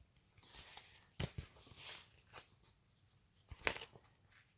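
Snack packets being handled: a few short rustles and light knocks of wrapper and packaging, the loudest about a second in and again past three and a half seconds.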